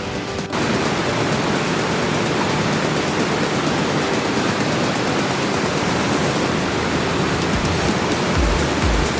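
Steady rush of falling water from a creek waterfall or cascade, starting abruptly about half a second in. A low, uneven thumping joins near the end.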